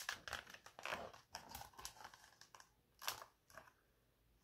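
A picture-book page being turned and handled: soft paper rustling and crinkling with a few sharper crackles, the loudest near the start, about a second in and about three seconds in.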